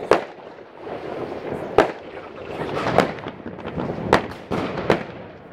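Aerial fireworks bursting: five sharp bangs about a second apart over steady crackling and popping.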